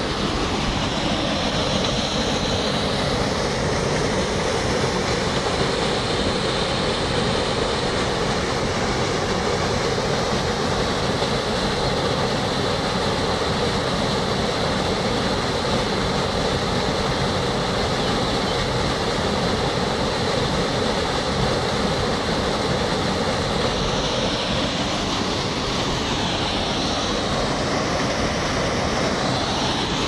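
Small waterfall pouring over rock ledges into a stream pool: a steady, unbroken rushing of water.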